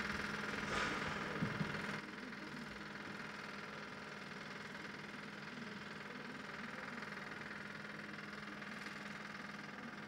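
A steady low mechanical hum, like machinery running, with a constant drone. It is slightly louder for the first two seconds, with a couple of faint knocks about a second and a half in.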